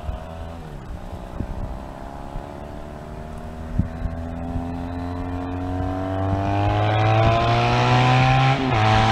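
2005 Triumph Thruxton parallel-twin with a TT exhaust and Lossa mini reverse-cone silencers, accelerating toward the listener from a distance. Its note climbs steadily in pitch and grows louder, with a brief break near the end as it changes gear.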